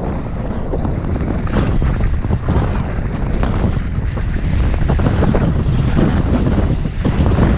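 Wind buffeting the microphone of a camera moving downhill at skiing speed, with the scrape of skis on packed snow underneath.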